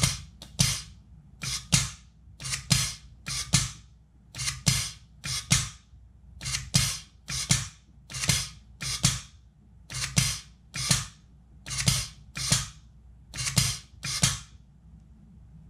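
Two 24-volt pneumatic solenoid valves being switched on and off by hand, sending compressed air to a pneumatic actuator that opens and closes the main valve. The result is a run of short, sharp clacks and puffs of air, nearly two a second and often in close pairs. The valve cycles as it should, opening and closing on time.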